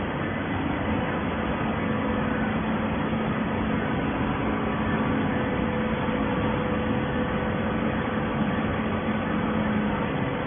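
Hydraulic waste paper baler running: a steady mechanical hum over even noise, with no change in pace.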